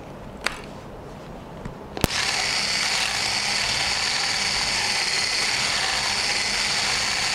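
Handheld electric whisk switched on with a click about two seconds in, then running steadily as its wire whisk beats egg white with cream of tartar in a plastic bowl to make meringue. A couple of light knocks come before it starts.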